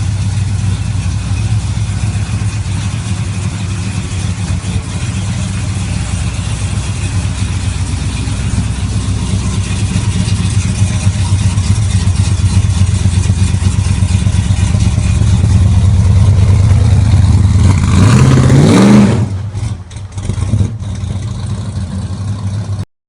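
Supercharged V8 engine of a 1969 Dodge Charger running at a steady idle that slowly grows louder. About eighteen seconds in it is blipped once, rising in pitch and falling back, then settles to a quieter idle.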